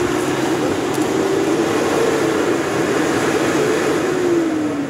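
Off-road 4x4's engine revving hard under load as it drives up out of a muddy rut, the revs wavering around a high pitch and dropping about four and a half seconds in.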